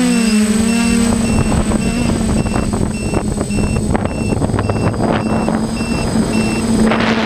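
Hexacopter drone's motors and propellers whining steadily, heard through the onboard GoPro, with the pitch wavering at first as the motors adjust and rough wind buffeting from about a second in. A short, high electronic beep repeats steadily and stops near the end.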